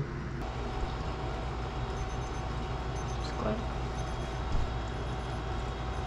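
A steady low hum with a faint, steady high tone added about half a second in, and a brief short voice sound about three and a half seconds in.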